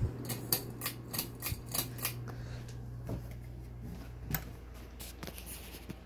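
Monte Carlo mini ceiling fan running with a steady low motor hum, with a quick run of sharp light clicks in the first two seconds and a few single clicks later.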